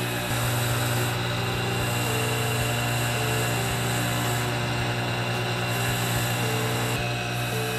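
Bench polishing motor running steadily with a steady hum, its buffing wheel spinning while an 18k gold ring is held against it for polishing.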